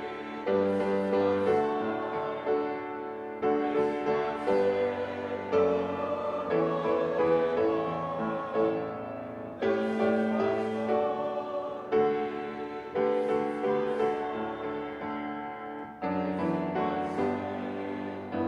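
Piano playing a slow hymn, with chords struck every second or two and left to ring.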